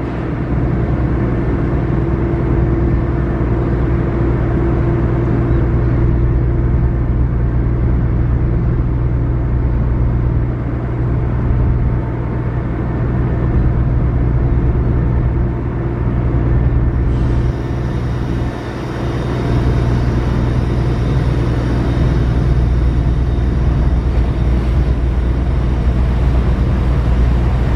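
Ro-Ro passenger ferry's diesel engines running with a steady low rumble as the ship pulls away from the quay.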